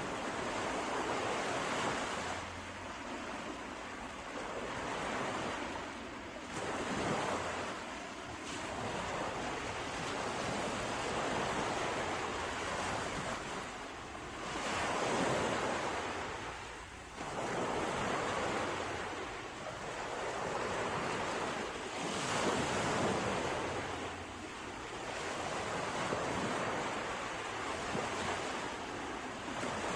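Sea waves breaking and washing on a shore, a steady rush of surf that swells and eases every few seconds, with some wind.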